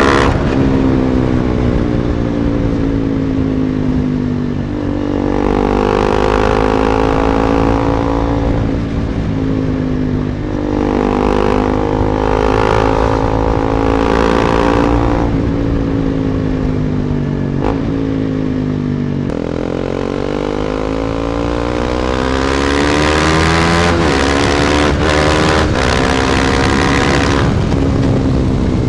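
KTM Duke 250's single-cylinder four-stroke engine through an aftermarket Akrapovic exhaust, under way: the revs fall, then climb and drop back several times with sudden steps between them as it shifts gears, and climb again in the second half. Wind noise on the phone microphone runs underneath.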